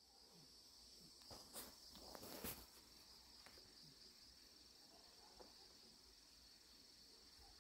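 Faint, steady high-pitched chirring of crickets, with two soft clicks about one and a half and two and a half seconds in.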